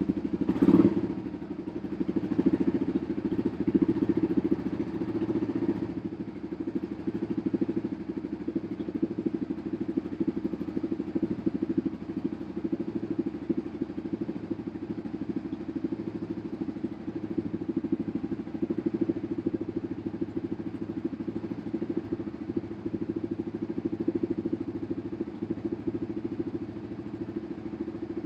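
Suzuki SV650's V-twin engine idling steadily on the choke, with a short louder burst under a second in. The bike is being checked for a misfire and popping.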